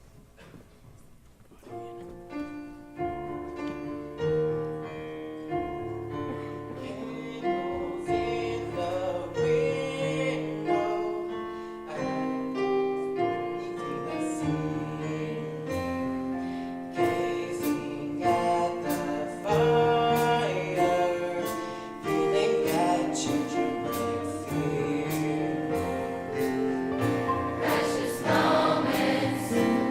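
Large high school choir singing, starting softly about two seconds in and building louder towards the end.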